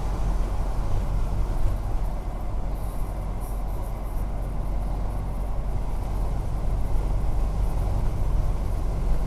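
Steady low rumble of road and engine noise inside a moving car's cabin, tyres running on a wet, slushy road, with a few faint ticks about three seconds in.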